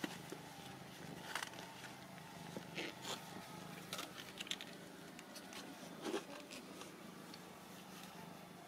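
Newborn Ragdoll kittens nursing: a few faint short clicks and squeaks scattered over a steady low hum.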